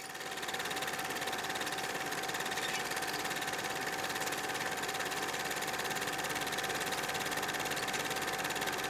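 Film projector running, a steady fast mechanical clatter with a constant whir, fading in at the start.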